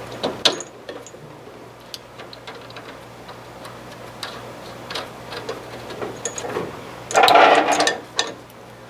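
Scattered light metallic clicks and taps of hand tools and car parts being handled, with one louder, rougher burst lasting about a second, about seven seconds in.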